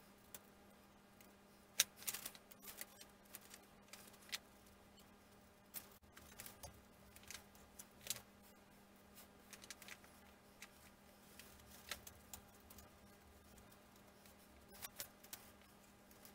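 Light, irregular clicks and taps of thin wooden model-kit parts being handled and slotted together on a paper plan, over a faint steady hum.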